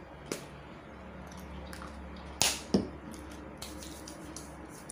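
Two sharp hand claps a third of a second apart, about two and a half seconds in, after a soft click, with a few faint ticks afterwards.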